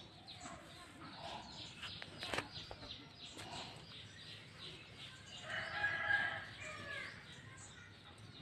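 A rooster crows once, a call of about a second and a half starting about five seconds in, over scattered bird chirps.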